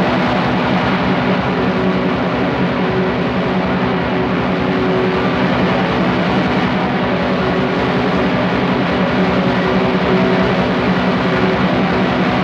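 Raw black metal with lo-fi production: a loud, unbroken wall of distorted band sound, with held chords sitting under a dense rush of noise.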